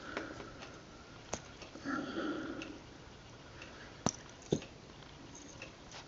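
A small multi-tool being handled, giving a few sharp metal clicks as its little fold-out tools are worked: one about a second in and two close together just past four seconds.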